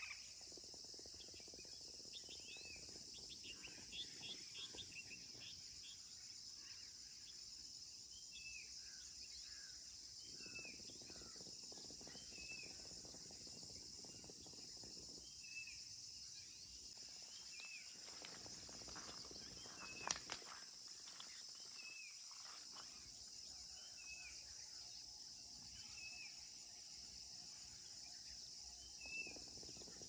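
Faint, steady high-pitched insect chorus with a bird repeating one short call about every second and a half. A single sharp click about two-thirds of the way through is the loudest moment.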